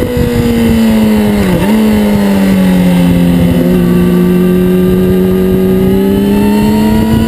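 Yamaha R6 600 cc inline-four sport-bike engine running at high revs on track, heard from an onboard camera. Its pitch dips briefly about a second and a half in, then holds and slowly climbs as the bike leans through a long corner.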